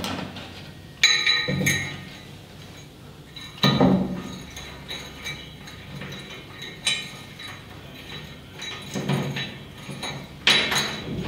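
Small metal parts and tools clinking as bolts are handled: four sharp clinks a few seconds apart, each with a short metallic ring, with quieter handling knocks between.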